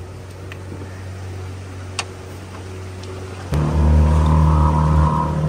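A boat's long-tail motor idling with a low steady hum, then throttled up suddenly about three and a half seconds in and running loud and steady. A single sharp click about two seconds in.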